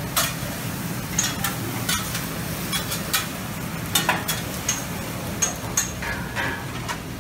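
Buffet restaurant room noise: a steady low hum with scattered sharp clinks of serving tongs, plates and utensils.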